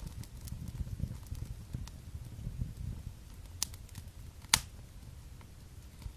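Fire burning in a fireplace: a low flutter of flames with scattered crackles and two sharp pops, the louder one about four and a half seconds in.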